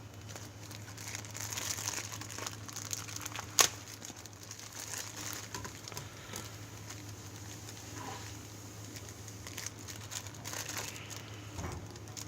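Packaging crinkling and rustling as a package is handled and opened by hand, with one sharp click about three and a half seconds in.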